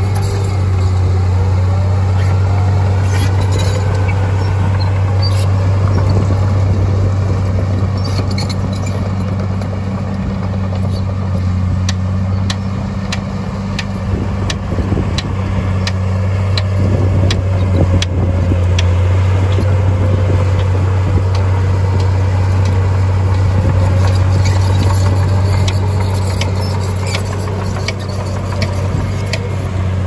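Heavy diesel earthmoving machine running steadily with a deep engine drone. Through the middle stretch a run of sharp clicks sounds over it.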